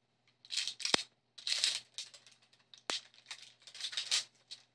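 Plastic packaging of a drumstick three-pack crinkling and tearing in irregular bursts as it is opened by hand, with two sharp clicks about two seconds apart.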